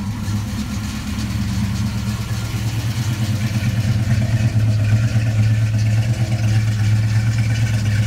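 A Fox-body Mustang's 5.0 (302) small-block Ford V8 with a Trick Flow cam, idling steadily moments after a quick start; it grows a little louder from about halfway through.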